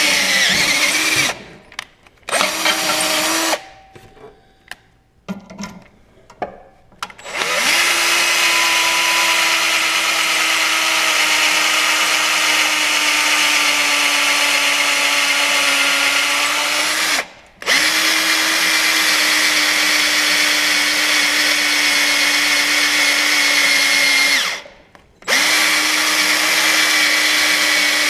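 Cordless drill boring holes through a steel paddle bar into a snowblower's impeller blade. It runs in a few short bursts, goes quiet for a few seconds, then runs in three long stretches with brief stops between, its pitch dropping slightly during each run.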